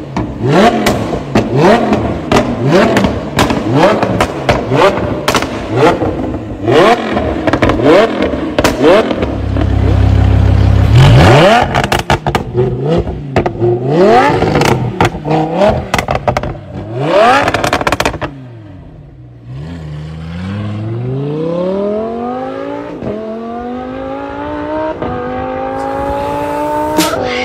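Lamborghini Huracan LP610-4's V10 through an Fi Exhaust valvetronic cat-back, revved again and again from standstill, each rev rising sharply and falling back with crackling pops on the overrun. After a brief lull about 18 seconds in, the engine pulls hard under acceleration, its pitch climbing steadily through an upshift.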